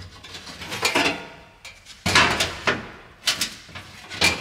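Bare sheet-steel replacement floor panel being shifted and lifted out of a car's floor during a trial fit, with a few sudden knocks and scrapes of metal on metal.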